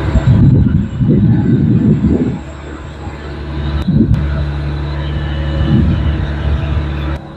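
Rippa NDI 680 tracked skid steer's 75-horsepower Cummins diesel engine running steadily, with a louder surge lasting about two seconds near the start and shorter ones around four and six seconds in.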